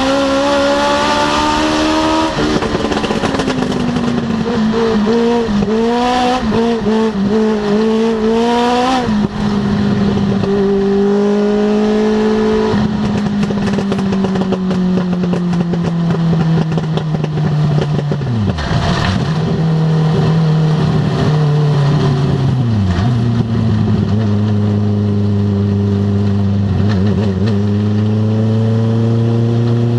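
Legends race car's Yamaha four-cylinder motorcycle engine, heard from inside the cockpit while racing on a dirt oval. The engine note rises and falls over the first several seconds, then falls gradually to a low, steady pitch about two-thirds of the way through and climbs a little near the end.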